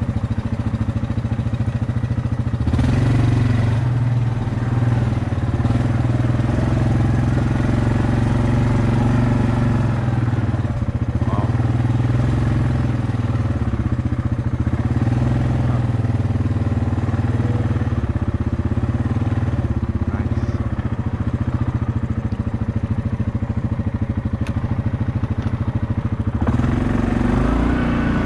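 Yamaha Kodiak 700 ATV's four-stroke engine running under way, with the throttle opening up a few seconds in and the revs shifting again near the end.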